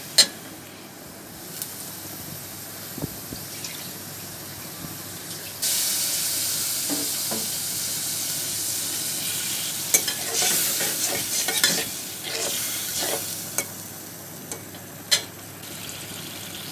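Onion and spice masala frying in oil in a karahi, stirred and scraped with a steel spatula that knocks on the pan several times. About six seconds in, a loud sizzle starts suddenly as water hits the hot oil, added to keep the masala from burning, and it dies down near the end.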